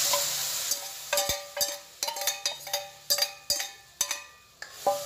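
Cooked green gram hitting the hot oil and masala in the kadai with a sizzling hiss that fades within the first second. Then a steel ladle scrapes and knocks against the steel pressure-cooker vessel about a dozen times, each knock a sharp, ringing metallic clink.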